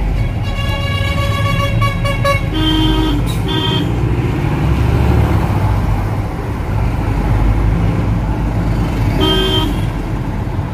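Steady engine and road rumble heard from inside a moving vehicle, with road horns sounding: one long honk lasting about two seconds near the start, two short lower-pitched honks just after, and another short honk near the end.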